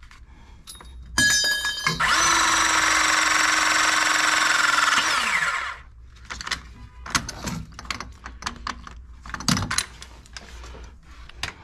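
Electric pipe-pressing tool crimping a 22 mm copper press fitting: it starts about a second in, the motor runs steadily for about four seconds while the jaw closes, then winds down with a falling pitch. Scattered clicks and knocks of handling the tool and pipework follow.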